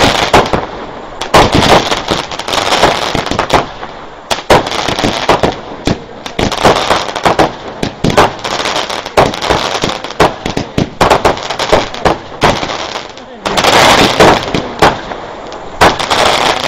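Fireworks going off in quick succession: many sharp bangs and pops with crackling between them, growing denser and louder near the end.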